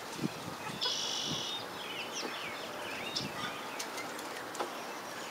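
Birds chirping: a short buzzy trill about a second in, followed by a few quick high chirps, with scattered light clicks.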